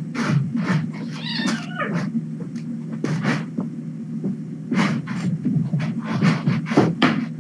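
A kitten gives a wavering meow about a second in, amid repeated knocks and rustles from kittens moving about the room, over a steady low hum.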